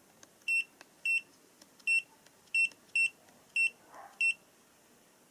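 GVDA GD166B clamp meter's beeper sounding each time its function button is pressed: seven short, high beeps over about four seconds at slightly uneven spacing, with faint button clicks between them.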